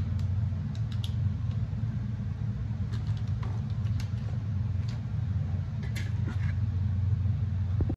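Steady low rumble, with a few faint clicks and rustles scattered through it.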